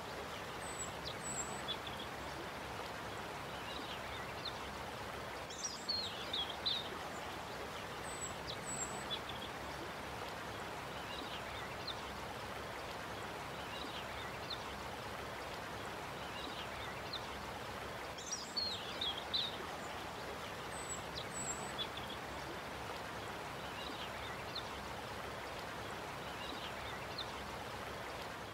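Steady running-water noise like a stream, with short high bird chirps recurring every several seconds: a nature ambience bed.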